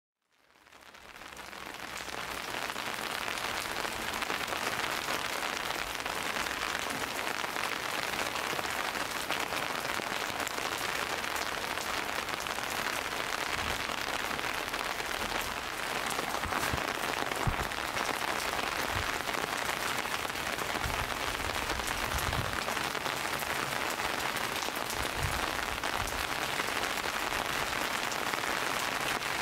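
Steady rain falling, fading in over the first couple of seconds and then holding an even hiss, with a few soft low thuds in the second half.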